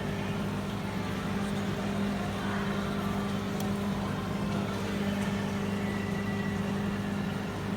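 A steady low mechanical hum over a constant background noise, with no breaks or sudden events.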